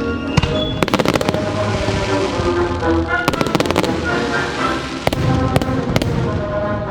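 Aerial fireworks bursting and crackling over a loud music soundtrack: a quick run of bangs about a second in, another cluster a little past the middle, and single sharp reports near the end.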